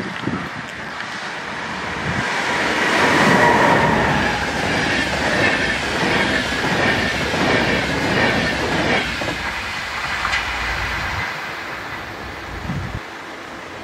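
InterCity train of IC1 coaches passing at about 142 km/h. A rushing noise builds to a peak about three seconds in, with the wheels clattering rhythmically over the rails, then dies away as the train recedes.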